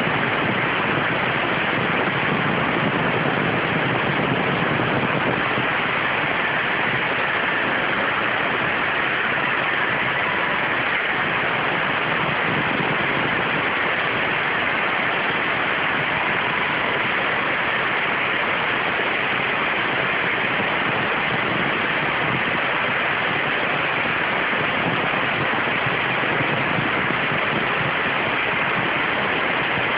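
CNC waterjet cutter's high-pressure jet cutting 0.6 mm stainless steel sheet: a loud, steady hiss that does not change.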